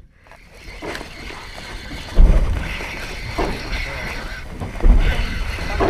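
Gusty wind buffeting the microphone on an open boat at sea, with two heavy low rumbles about two and five seconds in.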